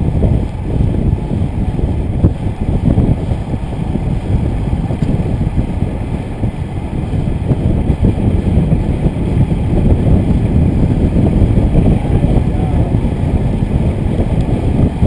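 Wind buffeting the microphone of a camera on a road bike riding at speed: a loud, steady, churning rumble.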